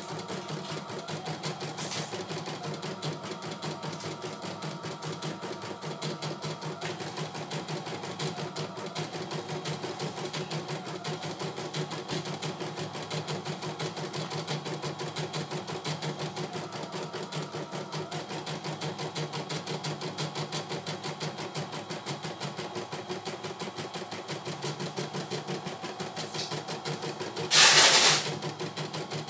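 CNY E900 computerized embroidery machine stitching a design, its needle running in a fast, even rhythm. Near the end there is a brief, loud burst of noise.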